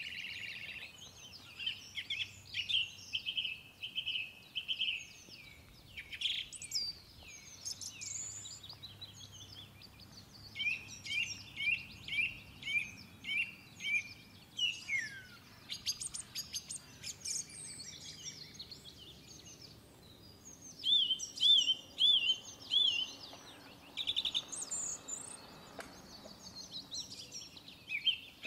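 Songbirds singing and chirping, with runs of quick repeated notes, slurred whistles and short trills overlapping throughout.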